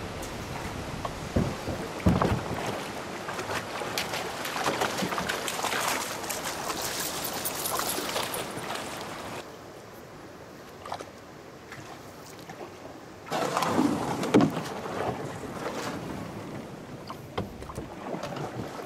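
Canoe on a river: water rippling and splashing around the hull with paddle strokes. About halfway it drops suddenly to a quieter calm stretch, with a cluster of paddle splashes a little later.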